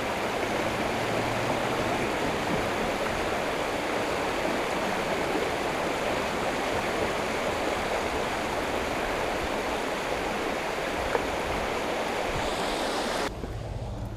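Creek water pouring over a low weir, a steady loud rushing. It cuts off abruptly near the end.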